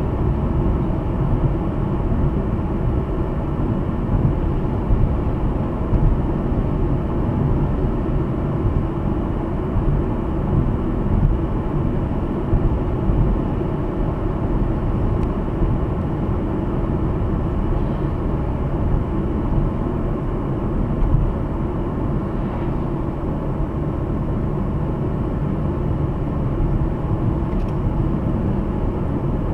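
Steady road and engine noise of a car driving at speed, heard from inside the cabin, mostly low in pitch.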